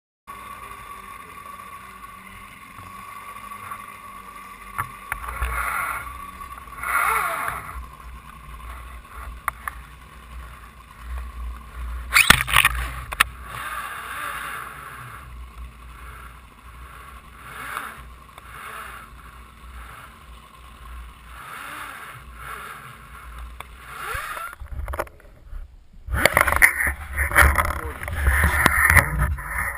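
Muffled knocks and a steady faint hum picked up through an underwater camera housing, with one sharp knock about twelve seconds in. After a cut near the end, louder wind and boat noise on an open boat deck.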